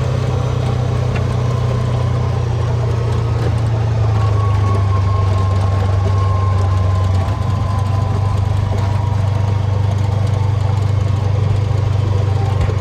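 John Deere Gator XUV 590M side-by-side's twin-cylinder gas engine running steadily while the vehicle is driven, a loud low drone that swells slightly about four seconds in.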